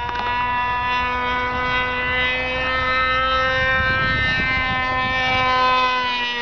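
Tower .75 two-stroke glow engine swinging a 12x6 propeller on an RC airplane in flight: a steady, high-pitched buzzing whine whose pitch holds nearly level with slight drifts. A brief low rumble comes in about four seconds in.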